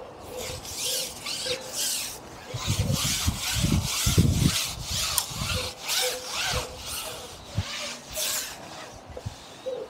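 A carbon match-fishing pole being pushed out hand over hand, its sections sliding and rubbing in repeated short strokes. A few dull thumps come near the middle.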